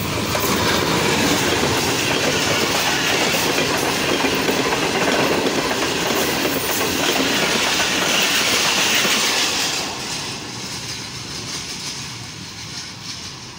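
Express passenger train passing at speed: a loud, steady rush with the coach wheels clattering over the rail joints, falling away after about ten seconds as the last coach draws off.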